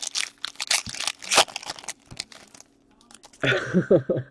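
Plastic card packaging crinkling and rustling as hockey cards are handled, in a quick run of crackles over the first two seconds. A man's voice comes in briefly near the end.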